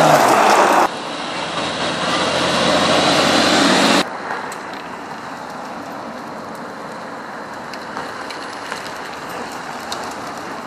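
Cars driving past on the road, loud for the first four seconds as one passes close, then dropping off abruptly to a quieter, steady traffic noise with a few faint ticks.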